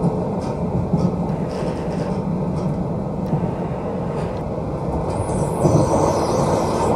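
Passenger train running along the track, heard from inside the carriage: a steady rumble with occasional faint clicks from the wheels. A rushing hiss builds from about five seconds in.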